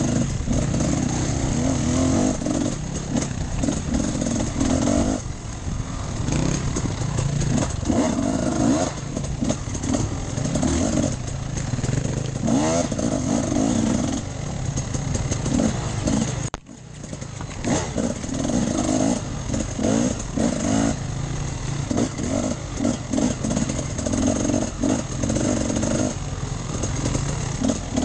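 Enduro dirt bike engine being ridden off-road, revving up and down with the throttle. The sound drops away for a moment about two-thirds of the way through, then picks up again.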